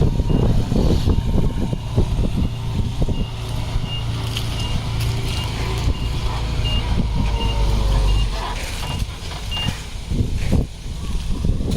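Heavy construction machine's reversing alarm beeping about two to three times a second over the rumble of its diesel engine, with knocks and clanks; the beeping stops near the end.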